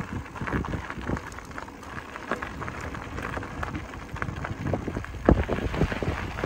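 Bicycle riding over rough, gravelly ground: an irregular crackle of tyre and rattle noise, with a sharp knock about five seconds in.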